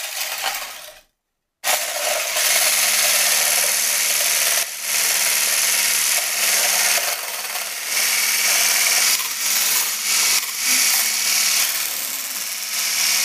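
Electric hand blender with a whisk attachment whipping milk and milkshake powder in a plastic beaker. The motor starts, cuts out for a moment about a second in, then runs steadily with a constant hum.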